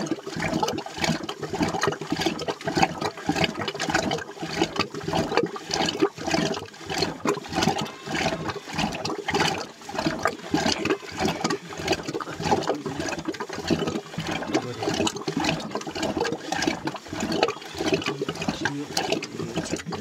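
Traditional rope-pulled wooden churn spinning back and forth in a clay pot, the liquid inside sloshing and splashing in a rhythmic run of strokes as milk is churned for butter.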